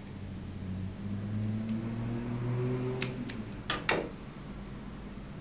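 Small screwdriver turning the adjusting screw of a nylon torque hinge, with a few light clicks of metal on plastic a little after three seconds and a sharper pair of clicks just before four seconds as the screwdriver comes away. A low steady hum lies underneath.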